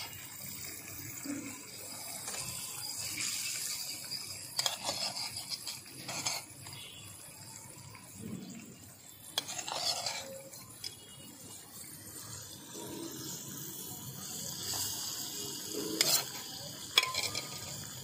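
Curry sizzling in a miniature iron kadai over a small wood fire, with a metal spoon clinking sharply against the pan and plate several times as fried fish is spooned in.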